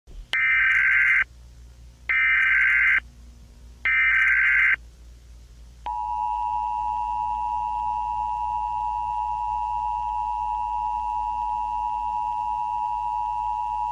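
Emergency Alert System alert tones: three short screeching bursts of the SAME digital header, about a second each. Then, about six seconds in, the steady two-tone EAS attention signal, held for about eight seconds. A faint low hum runs underneath.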